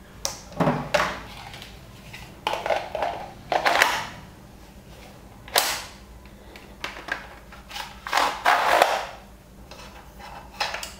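Hard plastic parts of a toy gel-ball rifle being handled and fitted together: a string of clicks, knocks and scraping as the stock and then the barrel are pushed into place.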